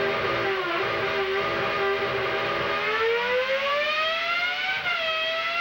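Toyota Formula One V10 engine running on a test bench: it holds a steady high note, then revs up over about two seconds, dips briefly and settles at a higher pitch.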